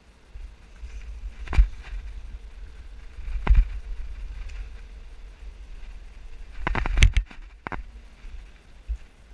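A few sharp knocks and a quick run of clattering about seven seconds in, over a low rumble of wind or handling on a body-worn action camera, as its wearer moves about at a metal construction fence.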